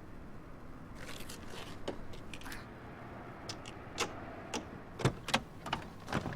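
Handling noise: rustling and rattling from about a second in, then a run of sharp separate clicks and light knocks in the second half.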